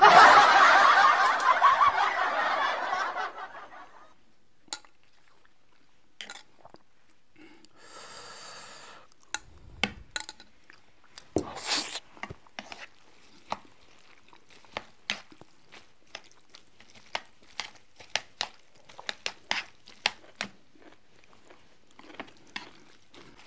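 Close-miked eating sounds: lip smacks and chewing of noodles, with chopsticks clicking against plates as many short, sharp, irregular clicks. It opens with a loud hissing rush that fades out over the first few seconds.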